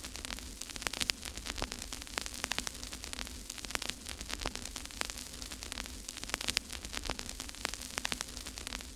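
Crackling static: irregular clicks and pops over a steady low hum and hiss.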